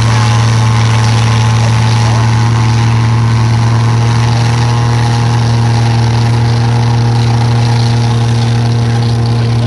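Snowcat's diesel engine running at a steady, unchanging note as the groomer drives, with an even rushing noise from its tracks churning through deep snow.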